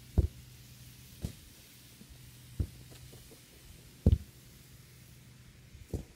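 A football being dribbled and kicked on grass: five dull thumps a second or so apart, the loudest a double thump about four seconds in as the ball is struck. A faint steady hum runs underneath.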